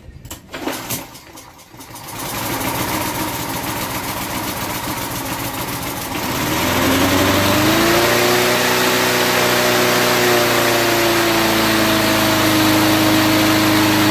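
Lawnmower's small single-cylinder engine, running on car wax in its crankcase instead of oil, catches on choke about two seconds in and runs. About six seconds in it speeds up, then holds a steady higher speed.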